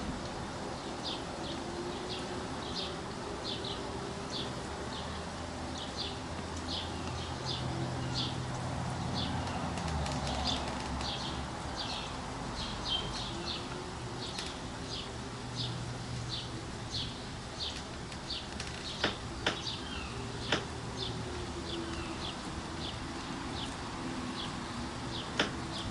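A small bird chirping over and over, about two short high chirps a second, over a low steady hum. A few sharp clicks come near the end.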